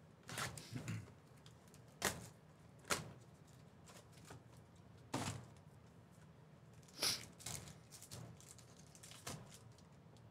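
Bowman Chrome hobby box and its card packs being handled: scattered short taps, rustles and crinkles of cardboard and pack wrappers as the box is opened, the packs taken out and one opened.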